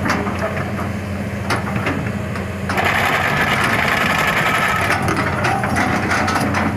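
Hitachi 200-class excavator's diesel engine running steadily under load, with a few sharp metal clanks from the track chain. About three seconds in, a louder rasping hydraulic noise comes up for about two seconds as the bucket pulls the machine forward onto its laid-out track chain.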